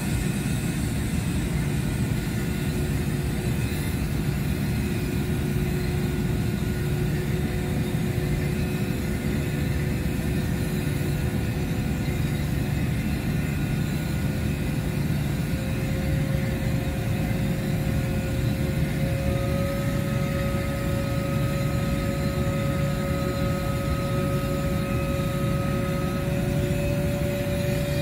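A steady engine drone that holds one level throughout, with a couple of faint whining tones that creep slightly higher in pitch about halfway through.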